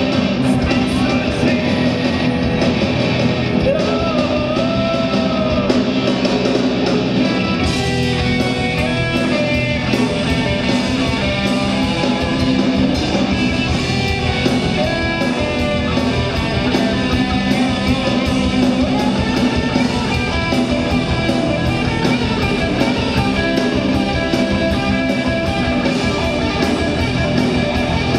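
Live hard rock band playing loud, with distorted electric guitars, bass and drums. About eight seconds in the drumming picks up into fast, steady cymbal hits under the guitars.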